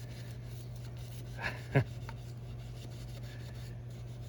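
Toothbrush bristles scrubbing the van's AC blower fan to clean off mouse remains, over a steady low hum. There is a brief sharp knock just under two seconds in.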